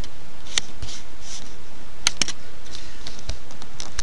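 A few sharp, unevenly spaced computer keyboard and mouse clicks, two of them close together about halfway through, over steady background noise.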